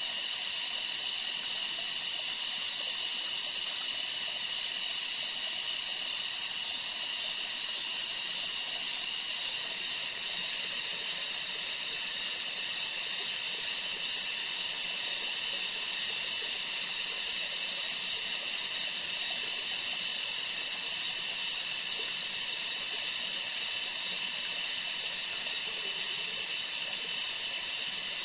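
Steady high-pitched chorus of rainforest insects, an even shrill hiss made of several held tones that never lets up.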